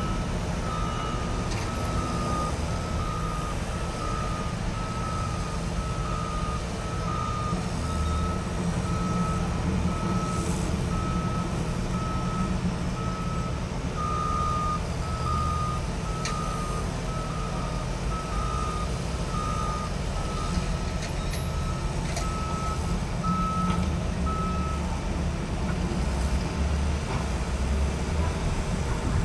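A truck's backup alarm beeps steadily at one pitch and stops near the end, over the low rumble of heavy diesel engines and traffic.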